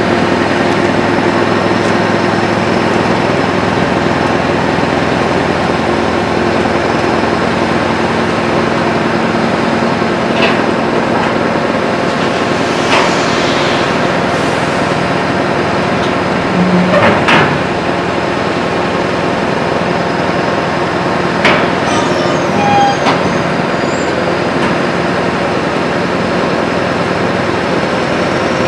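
Scania R560 V8 truck engine with an open, straight-through exhaust running steadily while its hooklift pulls a steel roll-off container up onto the truck. A few sharp metal clanks ring out over the engine, a little before halfway and again later.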